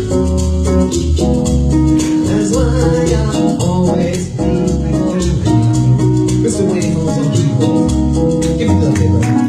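Live band playing a soul number, with a strong bass line whose notes change about every second.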